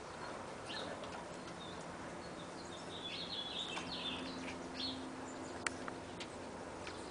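Small birds chirping, with short high chirps clustered about halfway through, over a faint steady low hum.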